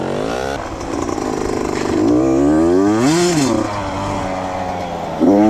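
85cc two-stroke dirt bike engine running and being revved, with a quick rev up and back down about three seconds in and another sharp blip near the end.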